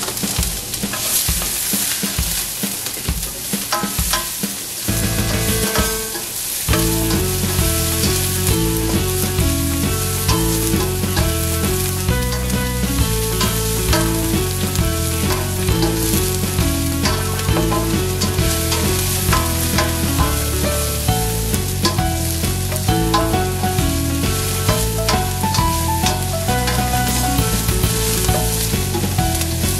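Diced onion sizzling in oil in a stainless steel sauté pan, stirred and pushed around with a spatula. Background music comes in about six or seven seconds in and plays under the frying from then on.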